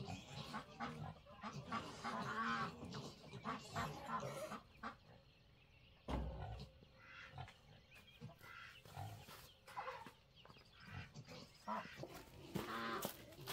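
Farm animals calling now and then, short pitched calls that come in a few bursts, with scattered faint knocks and one louder thump about six seconds in.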